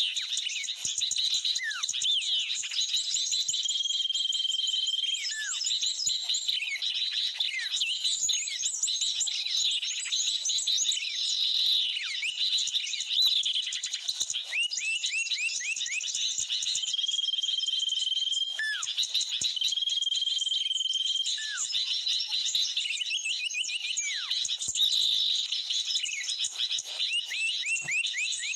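Dense, unbroken chorus of small birds' chirps and rapid trills. Several steady whistled notes, each about a second long, and a few downward-sweeping calls stand out from it.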